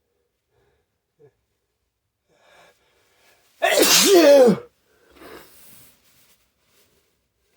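A person sneezing once, loudly, the burst lasting about a second, with a voiced 'choo' that falls in pitch.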